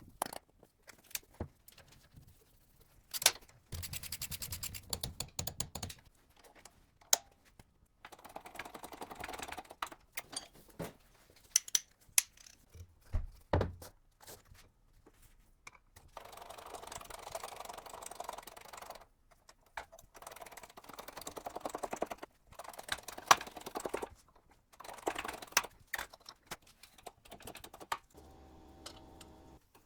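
Metal gearbox parts being handled and fitted by hand: scattered sharp clicks and knocks between stretches of scraping and rubbing.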